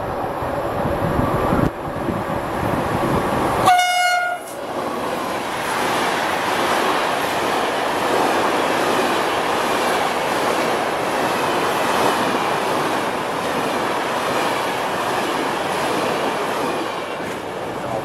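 Freight train passing: its horn gives one short blast about four seconds in, then a long rake of flat stake wagons rolls by with steady wheel-on-rail noise and some clickety-clack.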